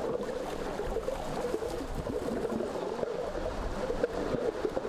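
River water splashing and trickling steadily as elephants bathe and are scrubbed in it.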